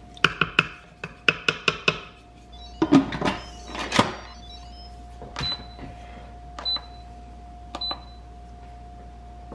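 A wooden spoon knocks against the stainless steel inner pot of an Instant Pot, then the lid clatters as it is put on and locked. Three short high beeps about a second apart follow as the control-panel buttons are pressed to set the cooking time.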